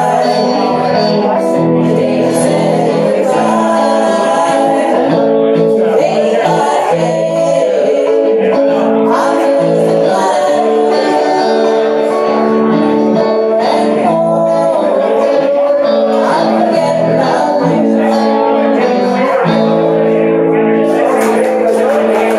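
Live amateur music: women's voices singing a song into microphones, accompanied by an electric guitar.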